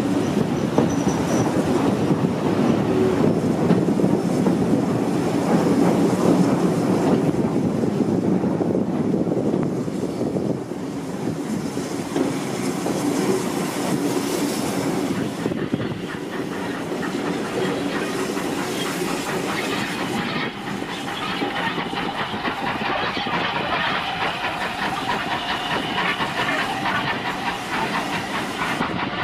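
Heritage railway carriage rolling over the rails, its wheels clattering and the carriage rumbling as the train slows into a station. A thin, high wheel or brake squeal joins in during the second half.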